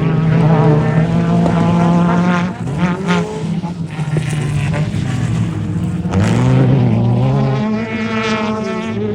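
Off-road race vehicle engines running hard and revving, their pitch holding, then dropping about two and a half seconds in and climbing again around six seconds in.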